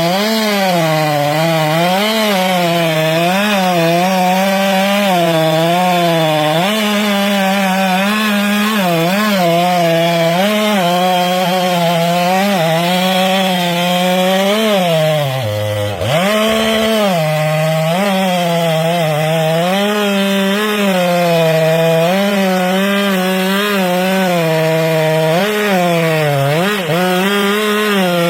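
Chainsaw engine running under load as it cuts into a large tree trunk, its pitch wavering up and down as the chain bites into the wood and frees. About halfway through, the engine drops off sharply for a moment and then picks back up.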